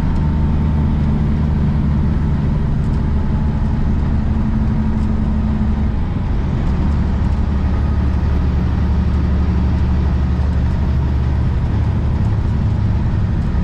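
Semi truck's diesel engine running steadily on the road, a low drone with road noise; the engine note changes about six seconds in.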